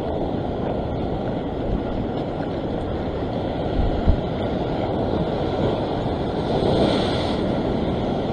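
Ocean surf washing over a rock shelf, with wind buffeting the microphone; the wash swells louder about six to seven seconds in. A short low thump about four seconds in.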